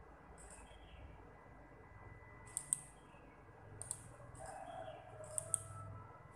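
Sharp, light clicks: one early, then three quick pairs spaced about a second apart, over faint steady room noise.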